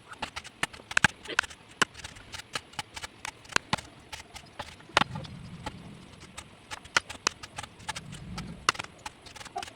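Irregular sharp wooden knocks, several a second with a few louder strikes, from hand tools carving teak wood, typical of a mallet tapping a carving chisel.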